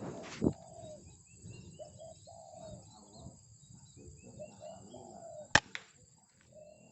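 Outdoor ambience of birds calling and chirping over a steady high insect drone, with a thump about half a second in. About five and a half seconds in comes a sharp, loud crack followed at once by a second lighter click, typical of an air rifle shot.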